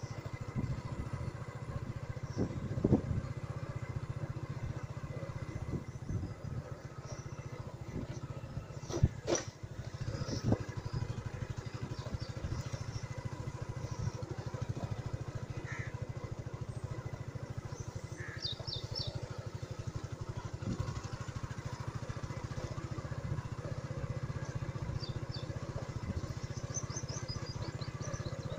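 Small motorcycle engine running steadily while riding along a rough dirt track, with a few knocks from bumps, the loudest about nine seconds in. Short high chirps come through near the middle and end.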